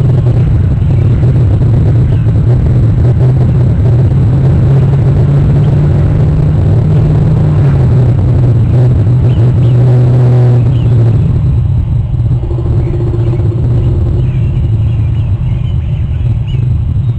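A steady, loud low rumble, with a brief pitched hum about ten seconds in and faint high chirps near the end.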